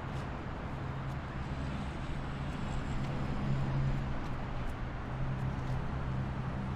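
Car driving on a highway: a steady rush of road and tyre noise under a low, even engine drone.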